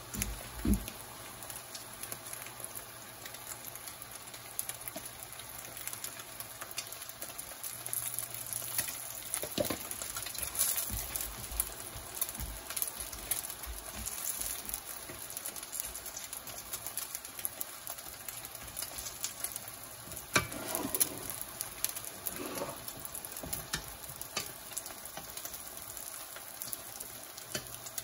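Oil sizzling and crackling in a pan as vegan duck pieces fry gently, with a few louder knocks, one just after the start and a couple about twenty seconds in.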